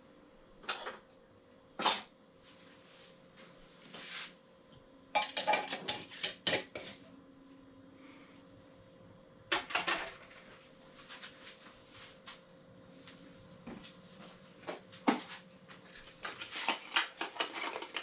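Glass canning jars and utensils clinking and clattering on a kitchen counter while chicken is raw-packed into the jars: scattered sharp knocks, with a quick run of clatters about five to seven seconds in and another near ten seconds.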